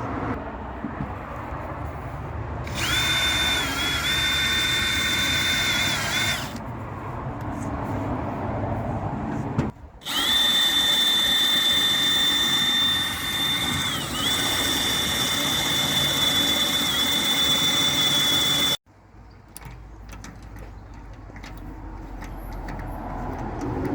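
Power drill running in two bursts, a short one and then a longer one of about eight seconds. It gives a steady high whine whose pitch dips briefly now and then as the bit takes load, and the second burst stops abruptly.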